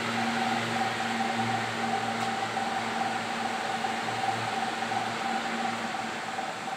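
Temperature-switched cooling blower fans of a solar inverter room running: a steady hum with a faint whine over a rush of air, growing slightly fainter near the end.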